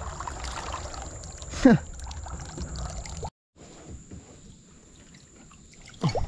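Water trickling and lapping around a kayak, with a short falling tone about a second and a half in. The sound drops out briefly about halfway, then the water noise goes on more quietly.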